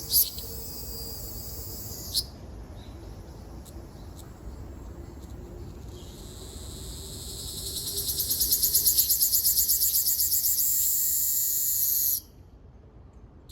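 Ryukyu large brown cicada (Graptopsaltria bimaculata) singing: a high sizzling buzz that swells from about six seconds in into a loud, pulsing drone, then cuts off abruptly near the end. A louder burst of buzzing opens the first two seconds before the song drops back.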